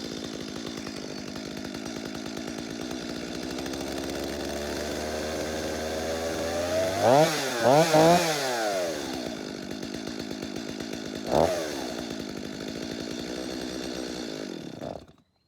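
Two-stroke chainsaw engine running on a freshly rebuilt carburetor: it idles steadily, is revved up and down three times in quick succession about halfway through and once more a few seconds later, then idles again and cuts off suddenly near the end.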